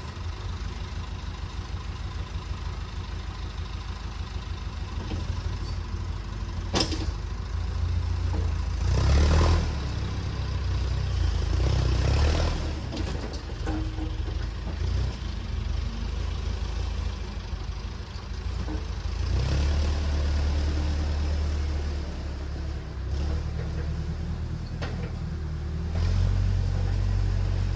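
Massey Ferguson backhoe's engine running while digging, its sound swelling and easing several times as the hydraulics are worked, with occasional sharp clanks, one clear one about seven seconds in.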